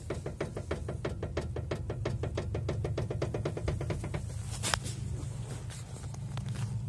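Ford Focus 3 steering rack knocking: a rapid, even run of knocks, about seven a second, that stops after about four seconds, followed by one louder click, over a steady low hum. The knocking is the sign of a worn steering rack.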